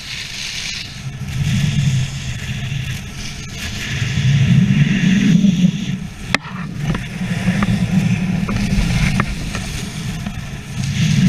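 Skis carving turns on snow, the edges scraping and hissing in swells with each turn, under a rumble of wind buffeting the microphone at speed. A single sharp knock about six seconds in.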